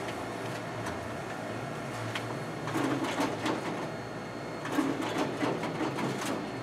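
Ricoh MP C3002 colour copier running a copy job, a steady mechanical whirr with clusters of clicks and paper rustling from about halfway in, the sharpest click a little later.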